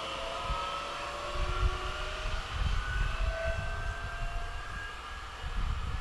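Bombardier Talent 2 (class 442) electric multiple unit pulling away, its traction motors giving a whine of several tones that climbs slowly in pitch as it accelerates and fades into the distance. Irregular low gusts of wind noise on the microphone.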